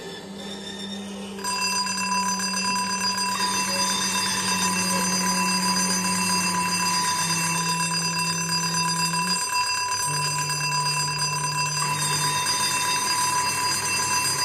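Layered steady electronic tones: several high tones held constant over a low hum that steps down in pitch a few times. The whole sound gets louder about a second and a half in.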